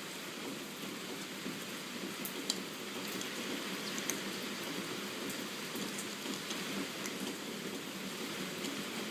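Steady rain falling, with a few faint sharp ticks of drops over the even hiss.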